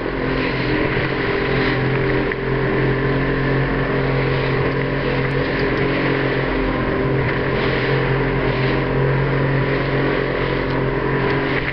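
A small boat's engine running at a steady pitch under way, with wind and water spray rushing over the hull as it pushes through rough chop.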